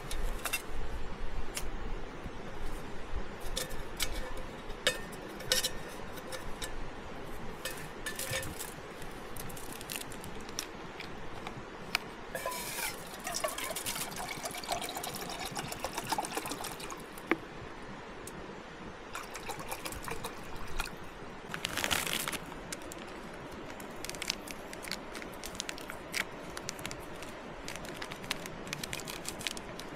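Camping cookware being handled with scattered clicks and clatters, then water poured from a plastic bottle into a small metal camping pot for several seconds, with a gliding tone as the pot fills. A short loud rushing noise follows about two-thirds of the way through.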